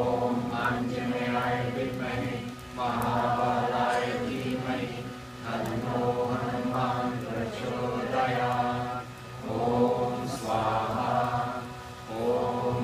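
A group of voices chanting mantras together, in repeated phrases of about two to three seconds with short dips between them.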